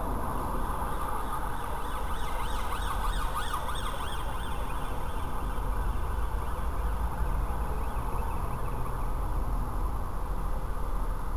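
An emergency-vehicle siren warbles rapidly for a few seconds, starting about two seconds in and fading out. Under it is the steady low hum of the stationary car's engine.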